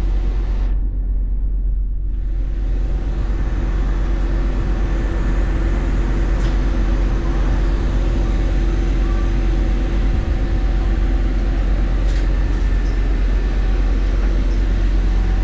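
Apron bus standing with its engine running, heard from inside the cabin: a steady low rumble with a constant hum. A hiss joins about two seconds in, and there are a couple of faint clicks.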